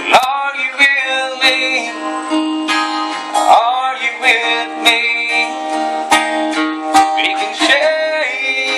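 Two acoustic guitars playing together: steady strummed chords under a picked lead melody with a few bent notes.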